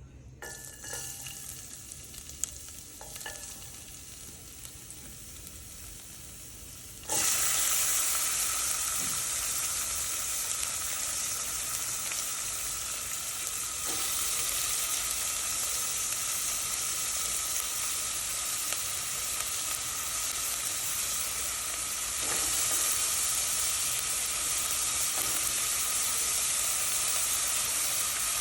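Oil sizzling faintly in a pan, then about seven seconds in a sudden loud sizzle as food is dropped into the hot oil. The frying carries on steadily, with occasional knocks of stirring in the pan.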